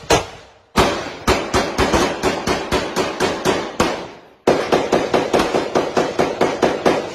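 Rifle gunfire in a large hall: two shots near the start, then rapid shots at about four to five a second in two long strings, broken by a short pause about four seconds in.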